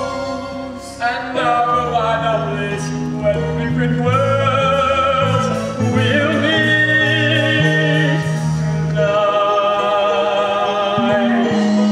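Musical theatre song: a singer holding long notes with a wide vibrato over an orchestral accompaniment with a bass line that changes every second or so.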